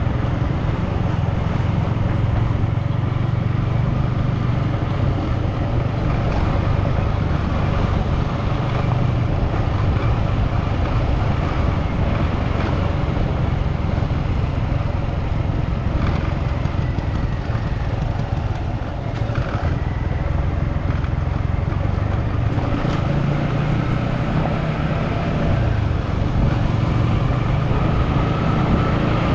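A motor vehicle driving steadily, with a constant engine hum and road noise.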